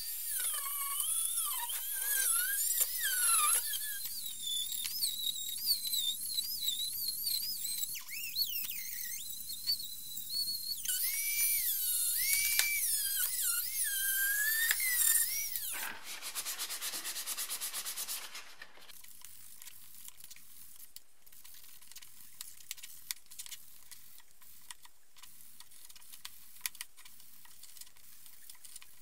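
Hand-held high-speed rotary tool whining on the metal hub of an engine cooling fan, its pitch rising and falling as the bit bites and frees. It gives a brief harsher burst and stops about two-thirds of the way through, leaving quieter rubbing and light clicks from the fan being handled and wiped with a cloth.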